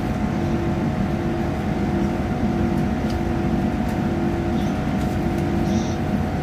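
Inside a moving passenger train: a steady rumble of wheels on track with a running hum from the train's machinery, a lower note of the hum pulsing on and off about once a second.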